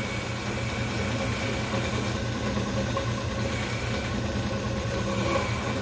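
Small metal lathe running with a steady hum as a hand-fed cutting tool shaves the metal ergo button. A thin high whine comes and goes a few times.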